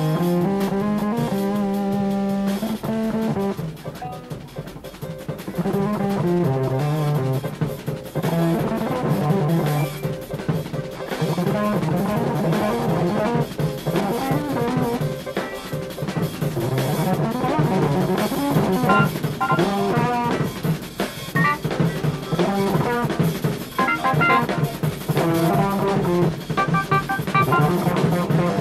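Jazz-rock fusion band playing live, with drum kit and electric guitar to the fore over bass, in fast, busy passages. The level dips briefly about four seconds in.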